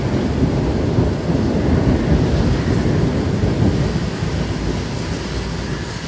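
Thunder rumbling low under steady rain, swelling about a second in and slowly dying away toward the end.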